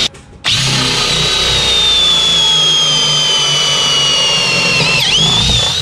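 Cordless drill with a Forstner bit boring into wood to clear out a mortise with overlapping holes. It stops for a moment just after the start, then runs with a whine that sinks slowly as the bit cuts deeper. The whine dips sharply about five seconds in and picks up again.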